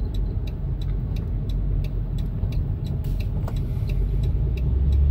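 Low engine and road rumble heard from inside a car creeping in slow freeway traffic, with a deeper hum swelling about four seconds in.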